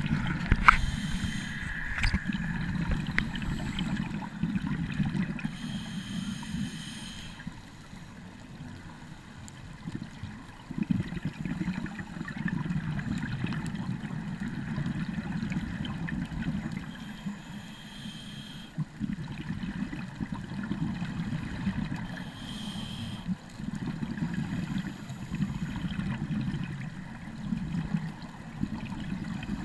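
Muffled underwater sound through a GoPro's waterproof housing: a steady low rumble of moving water, broken several times by short bubbling hisses from scuba divers' regulator exhaust.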